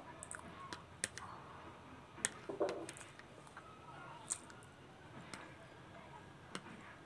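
Metal fork clicking and scraping against a plate while picking up scraps of food: a handful of sharp, irregular clinks, the loudest a little over two seconds in.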